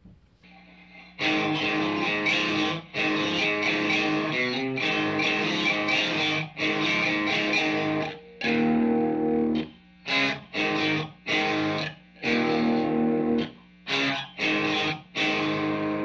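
Distorted electric guitar played through an amp head into two speaker cabinets, the Harley Benton 2x12 cab on the right channel and the Mesa Recto 1x12 cab on the left. Held chords start about a second in, then give way to short choppy chord stabs with brief gaps from about ten seconds in.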